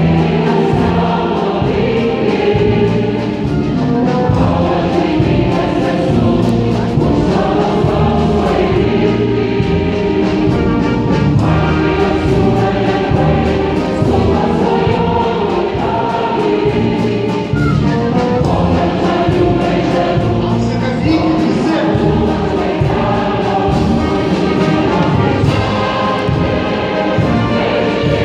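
Large massed choir singing with an orchestra accompanying, heard from among the singers.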